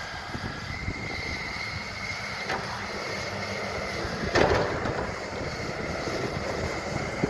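Excavator running steadily while digging. There is a light knock midway and a loud, sharp knock about four and a half seconds in.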